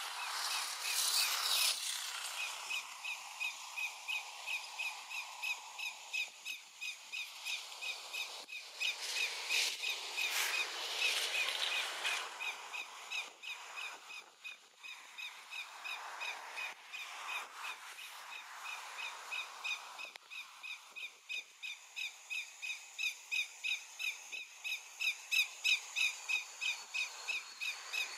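Greater yellowlegs giving its alarm call: short, sharp whistled notes repeated without pause, about two or three a second. A few swells of rushing noise rise and fall behind the calls.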